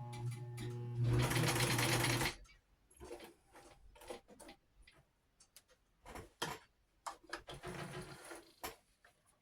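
1960 White straight-stitch sewing machine running in two short spells, with a steady hum and a fast stitching rattle: about two seconds at the start and just over a second near the end. The machine is still dry, not yet oiled. Between the runs there are scattered clicks and taps.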